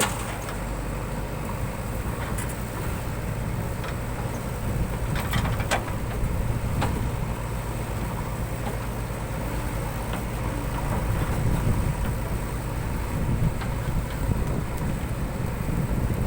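JCB 3DX backhoe loader's diesel engine running steadily under work, with a few short knocks about five to seven seconds in.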